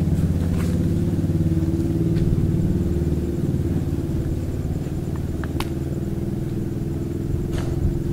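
Isuzu Panther Grand Touring's engine idling steadily, a low pulsing rumble, with a few faint clicks.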